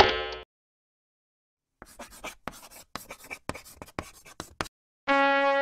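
Chalk writing on a blackboard: a quick run of short scratchy strokes for about three seconds. A held brass note starts near the end.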